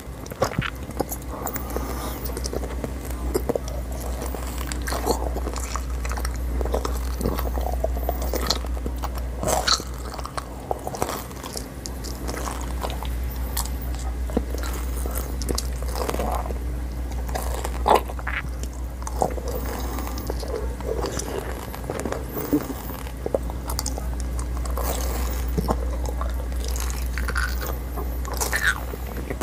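Xylitol coated gum pellets being bitten and chewed: irregular crisp crunches of the candy shell breaking, with chewing sounds between them.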